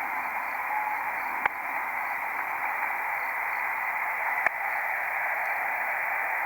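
Shortwave radio receiver putting out a steady hiss of static while the tuned weather broadcast carries no voice, with two sharp clicks about a second and a half in and again about three seconds later.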